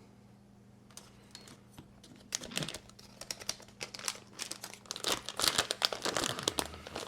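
Plastic packaging crinkling and rustling as it is handled, in quick irregular crackles that start about two seconds in and grow busier toward the end.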